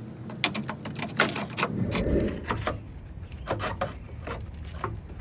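Irregular metal knocks and clanks as a worn upper control arm is worked free of a car's front suspension, with a brief rough scraping about two seconds in.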